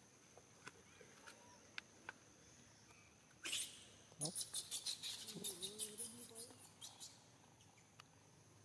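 Faint macaque sounds: a short rising squeal-like call about three and a half seconds in, then about three seconds of quick crackling clicks, roughly four a second, with a low wavering call among them.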